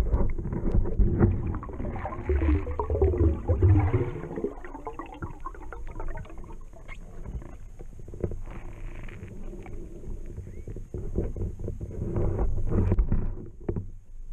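Muffled low rumbling with scattered knocks and clicks picked up by an underwater camera as it moves through the water, loudest in the first four seconds and again near the end.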